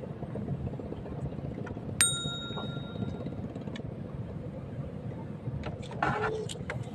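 A small metal bell struck once about two seconds in, ringing clearly and fading over about a second, over a steady low rumble. A short rustling noise comes near the end.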